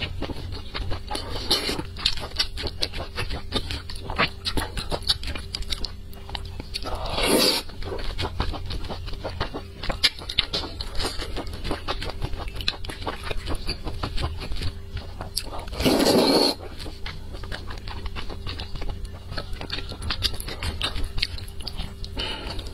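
Close-miked eating of soft, slippery wide noodles in chili sauce: wet chewing and mouth clicks throughout, with two loud slurps, one about seven seconds in and a louder one around two-thirds of the way through.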